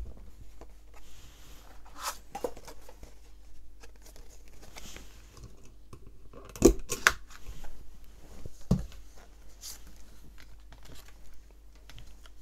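Handheld hole punch closing through a card tag, with two sharp clicks a little past halfway, amid light rustling of paper and card being handled.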